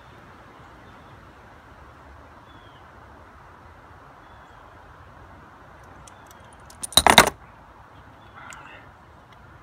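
A short burst of metallic clinking and rattling about seven seconds in, from small metal parts or tools being handled while a part is removed near the throttle body of a Buick Rendezvous engine. Before and after it there is only a faint steady hiss, with a few light ticks just before the burst.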